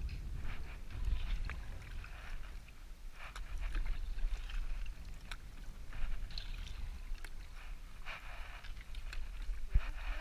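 Canoe paddling: the paddle blade splashes and swirls water every second or two, under a steady low rumble on the microphone, with one sharp knock near the end.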